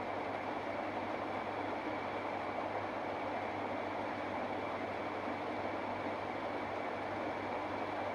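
Steady wind noise: an even rushing hiss with a low hum beneath it, unchanging and without gusts.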